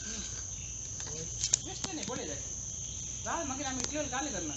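Crickets chirping in a steady, high, continuous trill, with a single sharp click about a second and a half in.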